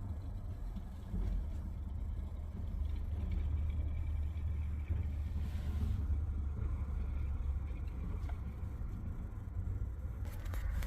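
A steady low rumble that holds unchanged throughout, with no sharp sounds over it.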